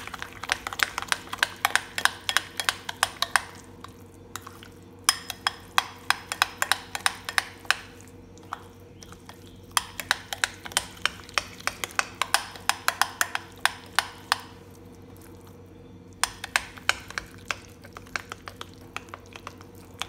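Metal spoon stirring a thick dhokla batter of yogurt and semolina in a glass bowl, clicking and scraping rapidly against the glass in runs with a few short pauses.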